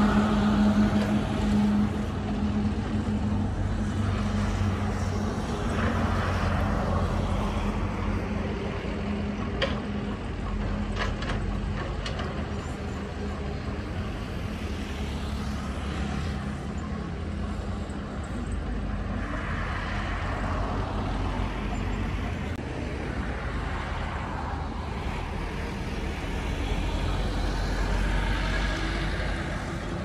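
Diesel engines of a Caterpillar 313C hydraulic excavator and a small crawler bulldozer running steadily, swelling several times as the machines work under load. A few sharp clicks stand out about ten to twelve seconds in.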